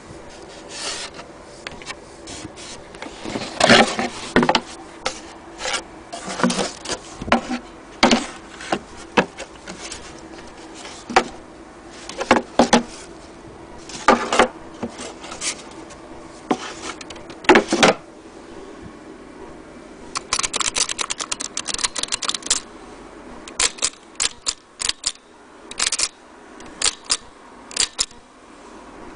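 Blickensderfer No. 7 typewheel typewriter being typed on: irregular sharp mechanical clacks, some in quick clusters. About two-thirds of the way through comes a fast rattling run of clicks, then a few single spaced clacks.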